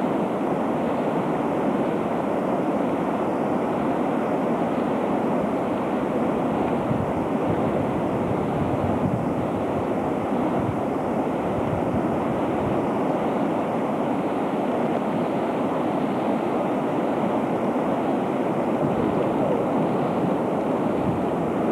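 Muddy floodwater of a stream in flash flood rushing down a village street, a steady, even rush of water with no letup.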